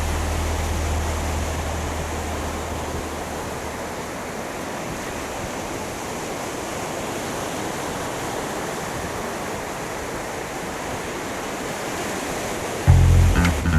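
Steady, even rush of ocean surf. The low bass of background music fades out over the first few seconds, and music starts again near the end.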